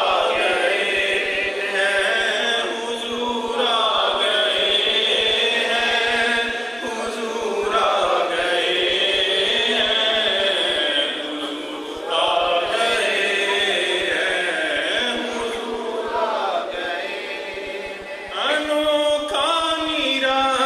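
A man singing an Urdu naat unaccompanied through a microphone, in long, ornamented phrases with brief pauses for breath.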